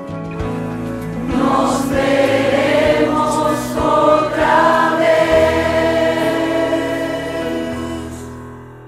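Background song with a choir of voices singing long held notes, fading out near the end.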